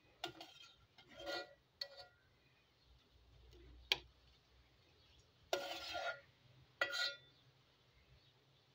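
Dishes being handled: a few short faint clinks and scrapes, with a sharp click about four seconds in and the longest scrape, ringing a little, about a second and a half later.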